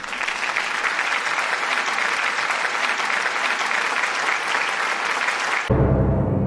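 A crowd applauding, a dense patter of many hands clapping. About five and a half seconds in it cuts off suddenly and music with low sustained tones begins.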